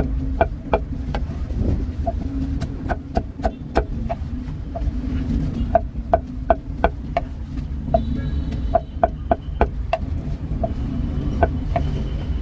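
Cleaver chopping roast meat on a wooden chopping block: sharp knocks about two a second in uneven runs with short pauses, over a low traffic rumble.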